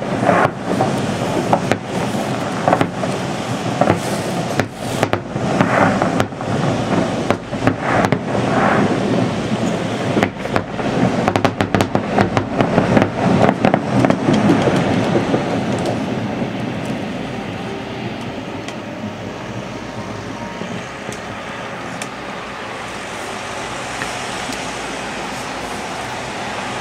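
Fireworks display: a rapid series of bangs and crackling bursts, thickest about halfway through, then dying away into a steady background rumble.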